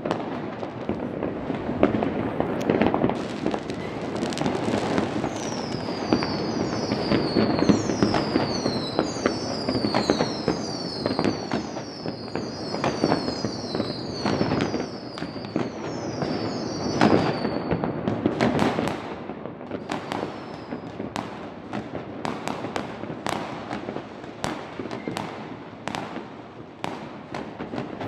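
Many fireworks and firecrackers going off at once: a continuous rumble of overlapping bangs with sharp cracks. From about five seconds in to about eighteen, a quick succession of high whistles sounds, each falling in pitch, from whistling fireworks.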